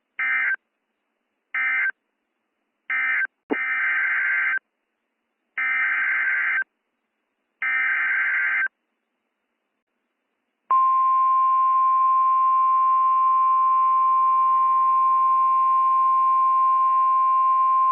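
Emergency Alert System SAME data bursts: three short end-of-message bursts about a second apart, then three longer header bursts announcing the next warning. After about a second of silence, the steady single-pitch 1050 Hz NOAA Weather Radio warning alarm tone sounds.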